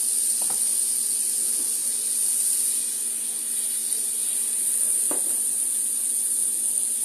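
Butter and oil sizzling in a hot skillet as the pan comes up to frying heat, a steady high hiss. Two faint taps are heard, one near the start and one about five seconds in.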